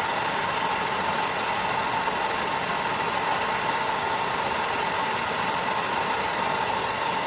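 Hand-held gas torch flame burning with a steady hiss and roar, heating a steel chisel to a dull red for hardening.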